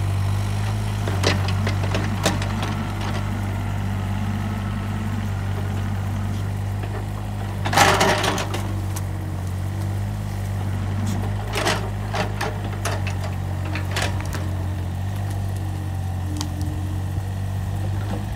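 Takeuchi TB135 mini excavator's diesel engine running steadily as it digs, with scattered knocks and cracks of the bucket working dirt, roots and a stump. The loudest is a crunch lasting about half a second, some eight seconds in, and a cluster of sharper knocks follows between about twelve and fourteen seconds.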